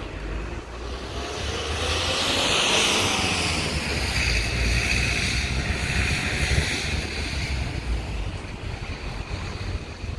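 Wind buffeting the microphone in a steady low rumble. A broad rushing sound of a passing vehicle swells from about a second and a half in and eases off toward the end.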